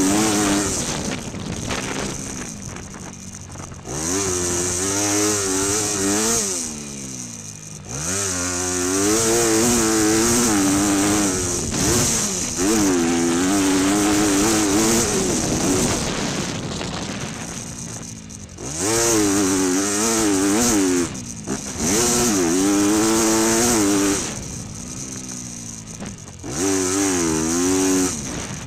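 Motocross bike engine ridden hard: about six bursts of throttle, each a few seconds long with the pitch wavering up and down, with drops off throttle between them.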